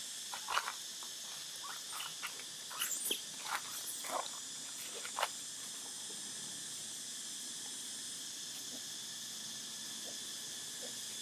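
Steady high-pitched drone of insects, with a few brief squeaks and clicks in the first half, then only the drone.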